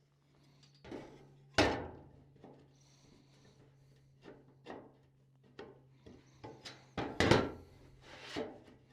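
A series of knocks and clunks from things being handled, the two loudest about one and a half seconds in and about seven seconds in, over a steady low hum.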